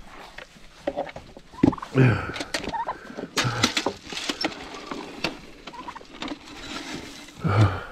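Farm animals calling and jostling at feeding time: short loud calls about two seconds in, again around three and a half to four and a half seconds, and near the end, over scattered clicks and scuffling.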